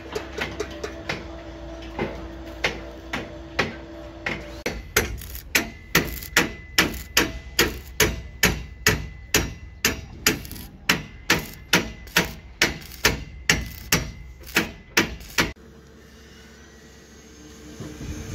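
Hammer blows on steel formwork, ringing metal strikes, irregular at first and then a fast even rhythm of about two to three a second. They stop abruptly near the end, leaving a quieter steady hum.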